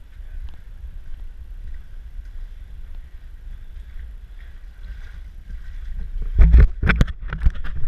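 Steady low rumble of wind and surf on an action camera's microphone, then a burst of loud irregular knocks and rustles from about six seconds in.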